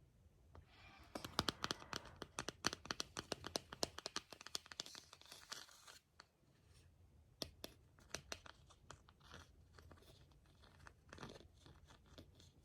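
Close crinkling and crackling, like something being crumpled or torn by hand: a dense run of sharp crackles for several seconds, then slower scattered clicks.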